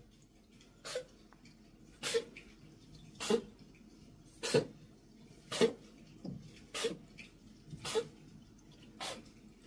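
A domestic cat sneezing over and over in a fast series, eight sharp sneezes about a second apart.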